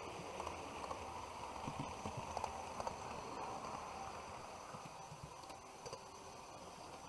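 HO-scale model trains running on the track: a steady running noise with irregular light clicks of wheels over rail joints, busiest in the first few seconds, and faint steady high tones.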